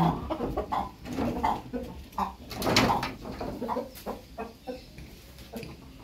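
Domestic hens clucking and calling, the repeated 'kaun kaun' complaint, in a string of short calls about one or two a second, the loudest near the middle.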